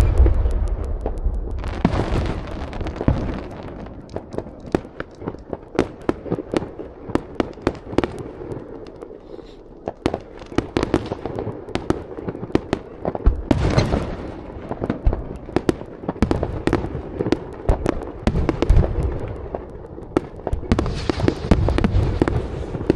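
Fireworks going off continuously, a dense run of sharp cracks and crackles with heavier bangs near the start, about two-thirds of the way through, and again near the end.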